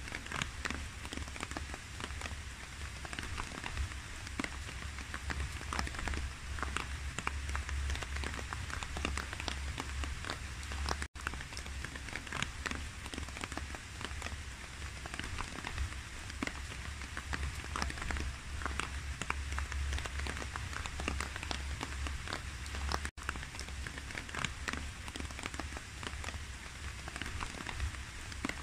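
Steady rain on water, a dense patter of many small drops over a low rumble. It cuts out for an instant twice.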